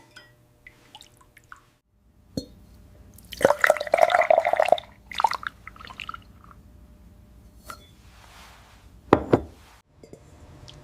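Silvering solution poured into a blown glass ornament: liquid splashing and trickling inside the glass, loudest from about three and a half to five seconds in, with a few light glass clinks and a sharp clink about nine seconds in.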